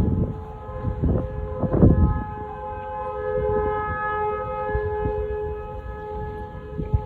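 T-128 outdoor tornado warning sirens sounding together as a steady chord of several held tones, with no rise or fall. Low rumbles hit the microphone at the start and about one and two seconds in, the loudest near two seconds.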